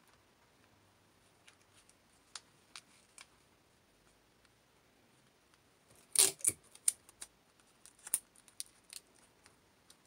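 Handling noise from a small yarn-wrapped cardboard craft piece being worked by hand: a few soft clicks, then a cluster of sharp clicks and snaps about six seconds in, loudest at the start, thinning out over the next few seconds.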